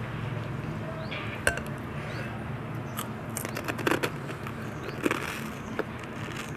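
Crisp fried puri (golgappa) shells being cracked open with the fingers: a handful of sharp cracks and crackles, bunched about three to four seconds in.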